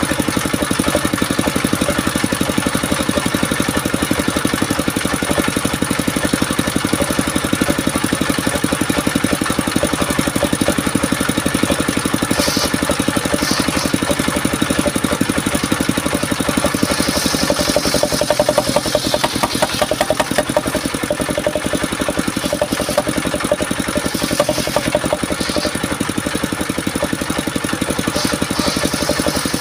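Engine of a mobile circular sawmill running steadily to drive a large circular saw blade, with a few short higher bursts of noise as the blade cuts through timber.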